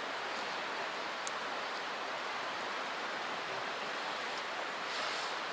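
Steady rush of a flowing stream, even and unchanging, with one faint tick about a second in.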